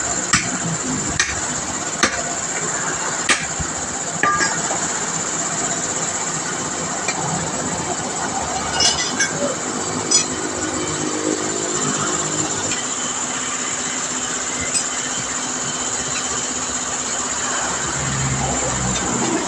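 Five sharp knocks, about a second apart in the first few seconds, like metal strikes, over a steady hiss that runs throughout; a few fainter clicks come about halfway through.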